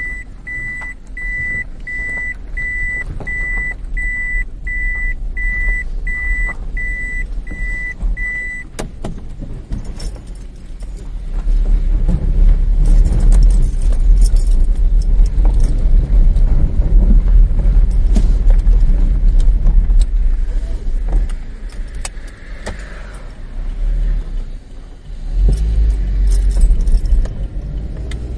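Inside a car's cabin: a high electronic warning beep repeats nearly twice a second, then stops. The car drives off, and the low rumble of its engine and road noise grows louder and runs on, with small rattles.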